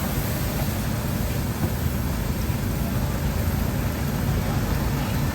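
Steady background noise of a busy outdoor night market: a low, even rumble with a hiss over it and no single sound standing out.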